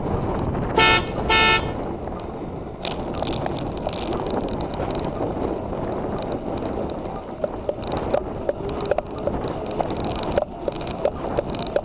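A horn gives two short, loud beeps about a second in, over steady wind and road noise from a moving bicycle; from about seven seconds in, light clicks come every fraction of a second.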